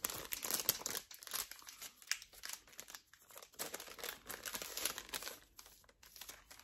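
Clear plastic fly packet crinkling in the hands in irregular bursts as it is opened to get at the streamer fly inside.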